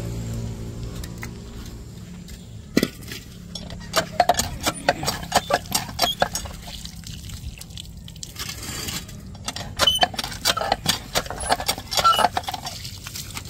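Metal top plate of a gas stove clinking and knocking as it is washed. An irregular run of sharp clinks and taps starts about three seconds in.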